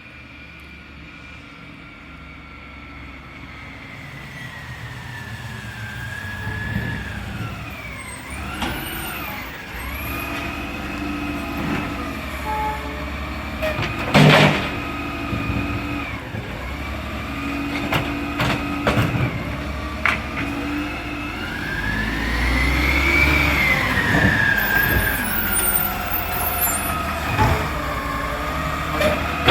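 Side-loader garbage truck running and growing louder, with a whine that holds steady and then rises and falls in pitch. A sharp loud bang comes about 14 seconds in, with a few smaller knocks.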